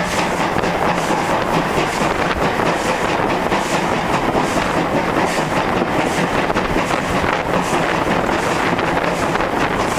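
Ivatt steam tank locomotive on the move, heard from its cab: a loud, steady rush of engine, steam and wheels on the track, with some wind on the microphone.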